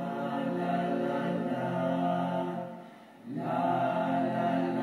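Several voices singing held chords together without instruments, in two long phrases broken by a short pause about three seconds in.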